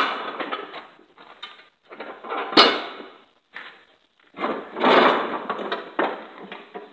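Steel mower deck of a Craftsman YS4500 riding mower being dragged and shoved across a concrete floor: three scraping pushes, the last the longest, with a sharp clank during the second.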